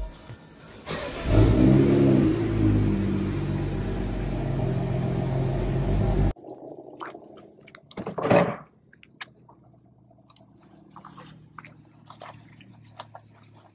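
BMW 435i's N55 turbocharged inline-six starting on its first start with fresh oil: it catches about a second in, flares up in revs briefly and settles into a steady idle. The engine sound cuts off suddenly about six seconds in. After that it is much quieter, with a brief louder noise near eight seconds.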